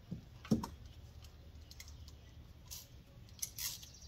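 A few light metallic clicks and a knock from a socket and wrench being fitted and worked on the bushing nut of a coolant temperature sender in an LS engine's cylinder head. The loudest click comes about half a second in, and a few more come near the end.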